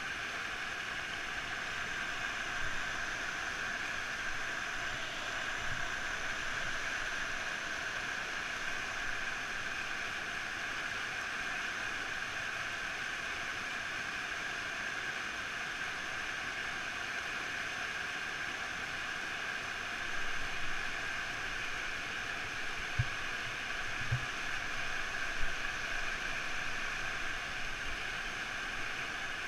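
Steady rushing of river rapids. A few soft knocks near the end.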